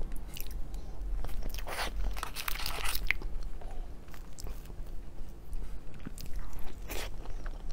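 Close-miked eating of a soft mango crepe cake: chewing and biting mouth sounds with scattered clicks. A fork cuts into the cake's soft layers.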